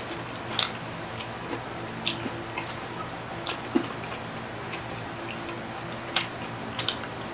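Close-miked eating sounds: scattered sharp smacks and clicks of chewing and of hands picking up food, about one a second, over a steady low hum.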